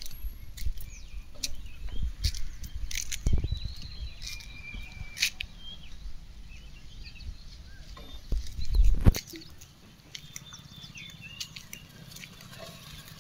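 Small birds chirping and whistling in short calls, with a low rumble of wind on the microphone that cuts out suddenly about nine seconds in.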